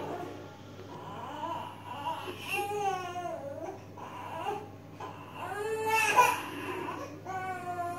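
A young child crying: three long, wavering cries, about two and a half seconds in, around six seconds in (the loudest), and again near the end.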